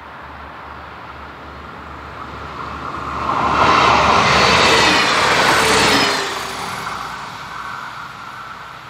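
Passenger train passing over a level crossing at speed. The rush of wheels and engine swells to a peak about four seconds in, then falls away with a dropping pitch just after six seconds. Under it, the crossing's warning bell rings steadily.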